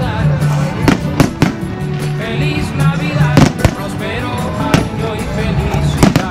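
Fireworks going off: several sharp bangs at uneven intervals, over music that plays throughout.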